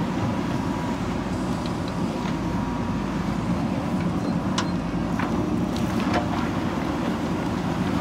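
JCB 3DX backhoe loader's diesel engine running steadily under load while the backhoe arm digs and swings. A few faint sharp clicks come about midway.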